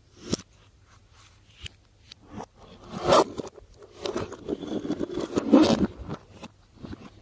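Hands kneading and stretching slime, giving off quick clicks and pops. There is a single sharp click just after the start, then a short burst about three seconds in, then a longer, denser run of clicking and squishing that is loudest about two-thirds of the way through.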